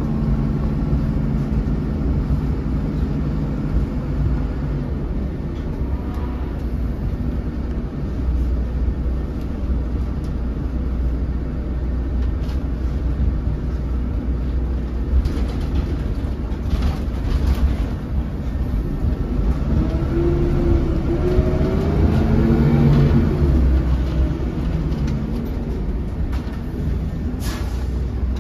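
Cabin sound of a 2008 MAN 16.240 Designline bus under way: a steady low diesel engine rumble with road noise. About twenty seconds in, the engine note rises and shifts as the bus accelerates. A few light rattles come through the cabin.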